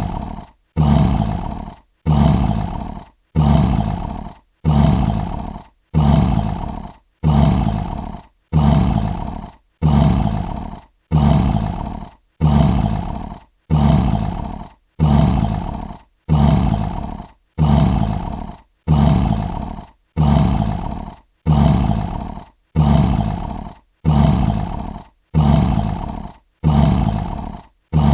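Lion roar sound effect: the same short roar repeated about every second and a half, each one starting abruptly and fading away before the next, a looped sample.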